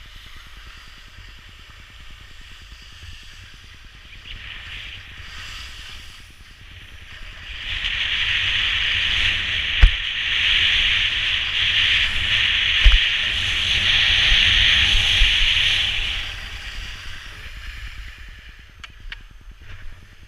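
Skis sliding and scraping over hard snow with wind buffeting the microphone, the hiss swelling loud for about eight seconds in the middle of the run. A sharp thump comes a little under halfway through, and a smaller knock a few seconds later.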